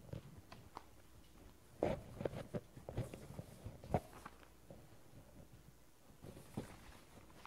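Sheets of paper rustling as they are handled and shuffled, in short scattered rustles with soft taps. The loudest come about two seconds in and at four seconds, with a quiet pause between them.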